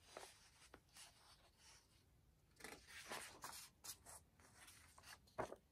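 Faint rustling and sliding of glossy paper as a CD album's photobook pages and poster are handled and turned. It comes as soft swishes, in a cluster through the middle and with one louder swish near the end.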